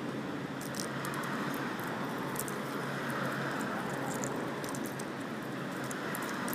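Steady street traffic noise, with scattered quick ticks of feral pigeons' beaks pecking at banana chips on stone paving.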